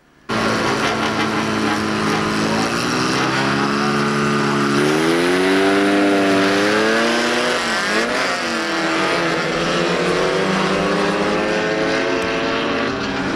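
Several bilcross race cars' engines, starting suddenly and running at high revs, then the pack accelerating away; the pitch rises about five seconds in and dips and climbs again around eight seconds, with several engines heard at once.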